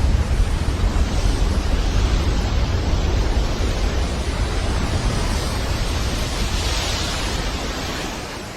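Loud, steady hiss of radio static that begins to fade near the end.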